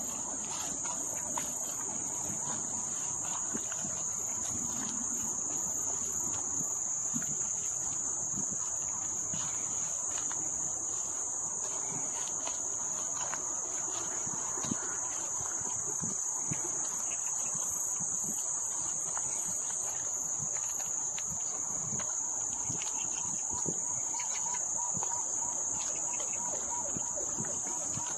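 Insects singing in a continuous high-pitched drone that holds steady without a break.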